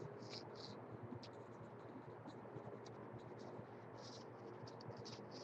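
Faint scratchy rustling in short, irregular bursts over a low steady hum.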